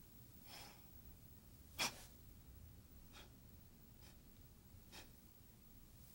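Near silence: room tone broken by a few faint, brief puffs of noise. A sharper one comes about two seconds in.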